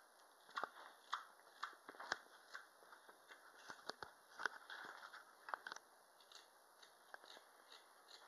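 Straight carving knife paring the peaks off a roughed-out wooden spoon: a run of short, faint slicing cuts and clicks at an uneven pace.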